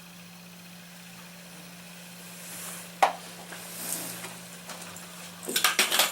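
A steady low hum, then a single sharp knock about halfway through and a quick run of clattering knocks near the end, like hard objects being handled and bumped.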